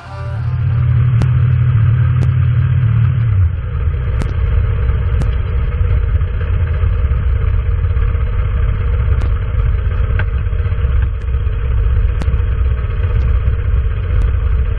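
Small motorcycle engine running with a steady low rumble. It drops a little about three and a half seconds in.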